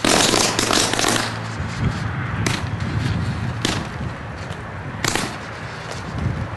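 Power line arcing at a utility pole. A loud crackling buzz lasts about the first second and a half, then sharp electrical cracks come every second or so.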